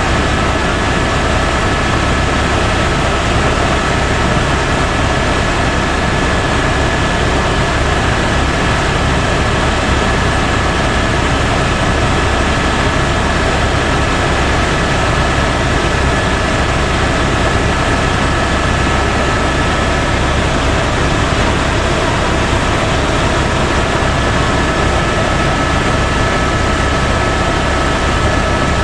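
Helicopter in steady cruising flight, heard from inside the cabin: a constant loud drone of rotor and engine with two steady high whining tones above it.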